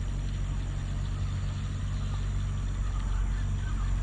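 JCB earth-mover's diesel engine running steadily, a low even hum.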